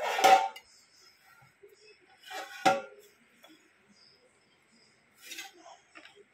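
Stainless steel tray clanking against a steel kitchen sink: a loud knock right at the start and a sharp one about two and a half seconds in, then a few fainter knocks near the end.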